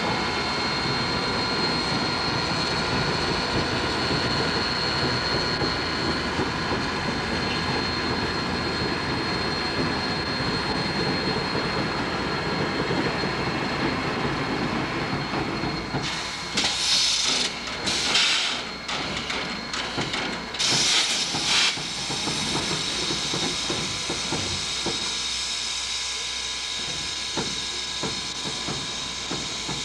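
US Army 2-8-0 steam locomotive standing on a turning turntable: a steady mechanical drone with a thin high whine, then a little past halfway several loud bursts of steam hissing over about six seconds, settling into a steady hiss.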